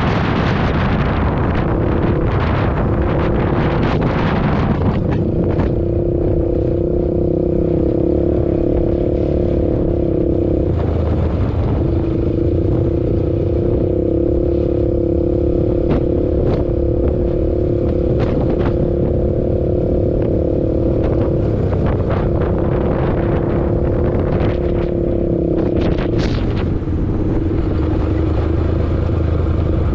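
ATV engine running at a fairly steady high rev. The note drops briefly a few times, about a third and two-thirds of the way through and again near the end. A rushing noise covers the first few seconds, and scattered sharp knocks and rattles run through it.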